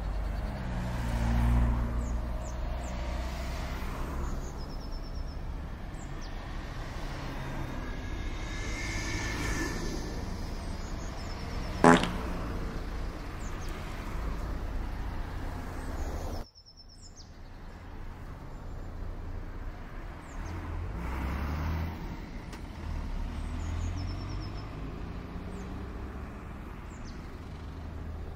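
Street traffic ambience: a steady low rumble of passing cars and trucks, with small bird chirps above it. About 12 seconds in there is a brief, loud, high squeal or beep from a vehicle. The ambience cuts off suddenly a few seconds later, then the traffic sound builds up again.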